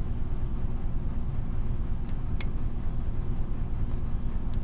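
A few faint, sharp clicks of a lock pick and tension wrench working the pins of a pin-tumbler challenge lock, over a steady low rumble.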